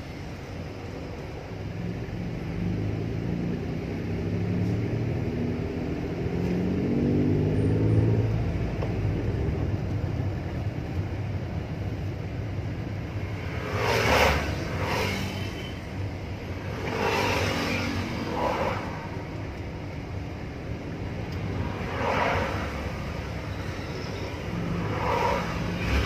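Toyota Wigo driving, with engine and road noise; the engine pitch rises for several seconds as the car accelerates, then eases off. In the second half several brief, louder rushing noises come and go.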